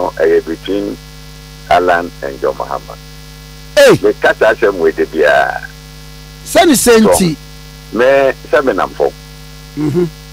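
Steady electrical mains hum carried on a telephone line, with talking over it that comes and goes.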